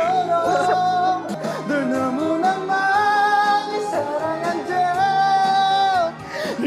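A singer holds long notes into a microphone over a karaoke backing track, pausing briefly about six seconds in.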